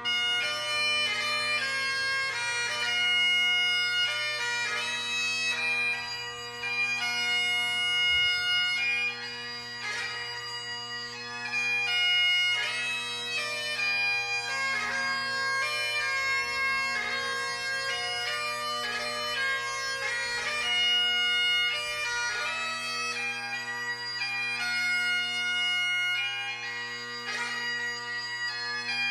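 Bagpipe music: a melody played over steady held drone notes, starting suddenly.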